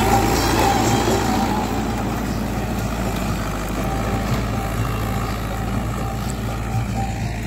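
Mahindra Yuvo Tech+ 585 DI tractor's diesel engine running steadily under load as it pulls a reversible plough through dry soil.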